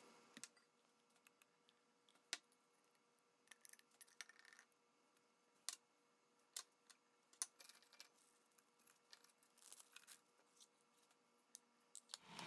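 Near silence with a faint steady hum, broken by scattered faint clicks and taps of ingredients and small dishes being handled and tipped into a plastic food processor bowl.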